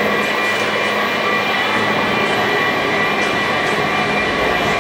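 Washington Metro 7000-series train approaching along the platform in an underground station: a steady rushing noise with high, steady tones running through it.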